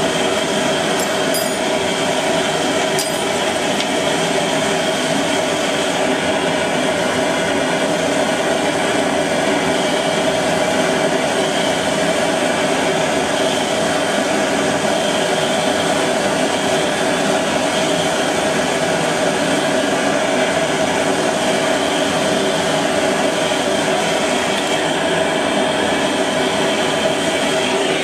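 Hand-held gas torch burning steadily, its flame heating a small pot of lead to melt it. A few light clinks in the first few seconds.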